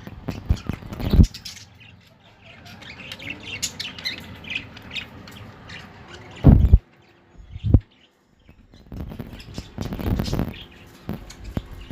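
Budgerigars chirping and twittering, broken by a few loud thumps: one about a second in and two more between six and eight seconds in.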